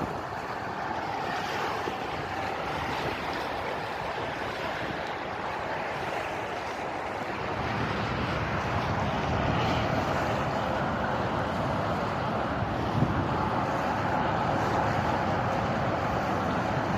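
Steady rushing of wind and water aboard a sailboat underway, slowly getting louder, with a faint even hum running beneath it.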